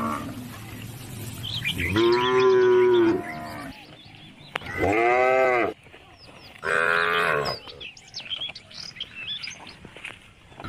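Calves mooing three times, each call about a second long, rising and then falling in pitch.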